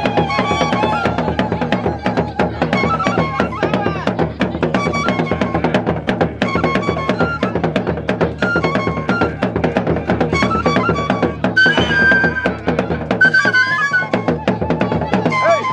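Traditional Gurunsi funeral drum music: a fast, steady beat of drum strokes, with pitched melody lines weaving above it.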